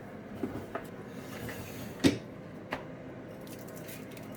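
A few light knocks and clicks from objects being handled, the loudest about two seconds in.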